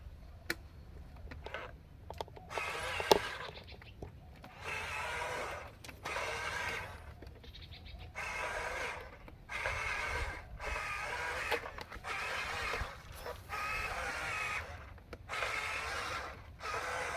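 Small electric gear motors of radio-controlled toy construction vehicles whining in short runs of about a second each, starting and stopping repeatedly, with a few sharp clicks in the first few seconds.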